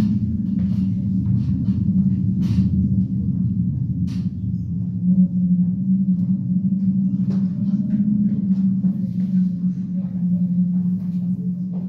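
Low, steady droning sound standing in for wind in the forest, with scattered light taps and rattles over it.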